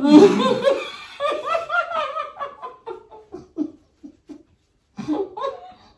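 Women laughing hard: a loud burst at the start that trails off into short, breathy snickers, then more laughter starting again near the end.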